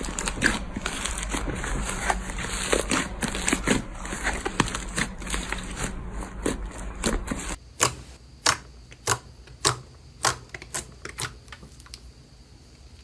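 Slime being played with by hand, giving dense crackling and popping clicks. Partway through it changes abruptly to single sharp clicks, about two a second.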